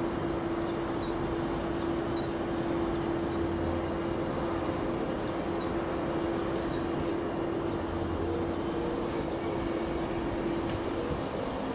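Steady electric hum from a parked NS Sprinter electric train standing with its systems running, with a constant tone that cuts out near the end. A run of faint, short high chirps sounds in the first few seconds.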